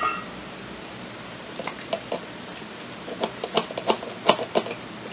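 A thin wooden stick poking strawberries down through a plastic funnel into a plastic bottle, making scattered light taps and scrapes that start about a second and a half in.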